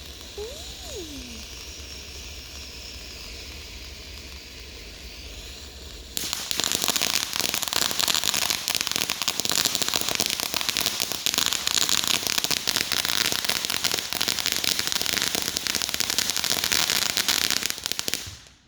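Fireworks crackling: a dense, rapid run of tiny pops that starts suddenly about six seconds in, runs for about twelve seconds and then stops abruptly. Before it there is only a steady low hum.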